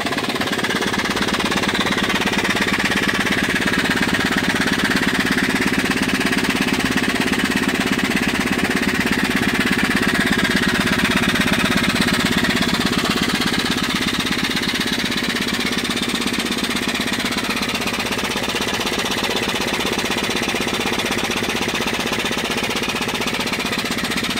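Antique Bumsted & Chandler high-speed steam engine running steadily on steam and driving a Johnson & Phillips dynamo, with a rapid, even mechanical beat at a constant level.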